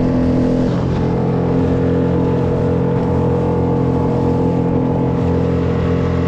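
Small outboard motor on a Solo Skiff running steadily under way while trolling. Its engine note shifts slightly about a second in, then holds.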